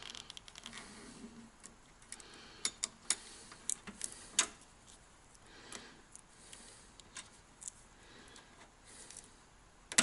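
A wire stripper clicking and snipping on insulated 10-gauge copper ground wire. A few sharper clicks come a few seconds in, followed by soft scattered ticks as the wire is handled and bent.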